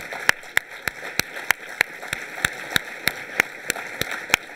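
Applause: one pair of hands clapping close to a microphone, sharp and even at about three claps a second, over the steady patter of an audience clapping.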